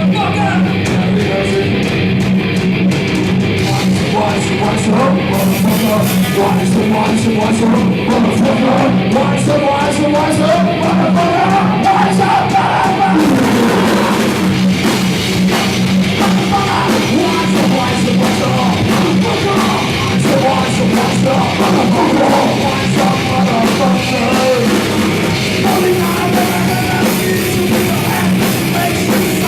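Live rock band playing loud and continuous, with distorted electric guitar and drum kit.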